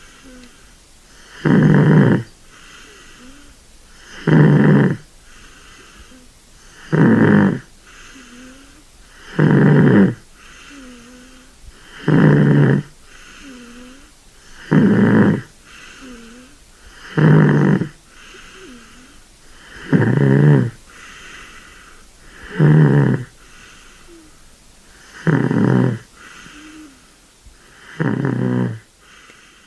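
Kitten snoring in sleep: a loud snore about every two and a half seconds, eleven in all, with a fainter breath sound between each.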